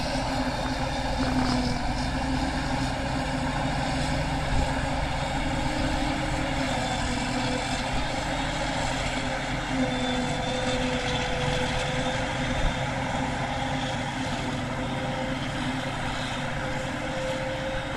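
Claas Jaguar self-propelled forage harvester running under load while chopping grass, a steady engine and chopper drone, with the tractor pulling the chaff trailer running alongside. The drone grows slightly fainter as the machines move away.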